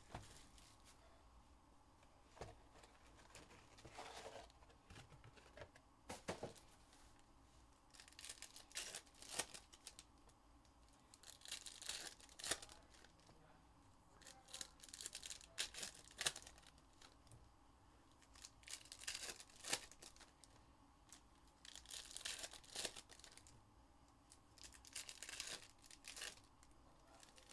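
Card-pack wrappers of 2022 Panini Contenders Football hobby packs being torn open and crinkled. The sound is faint and comes in short bursts every few seconds.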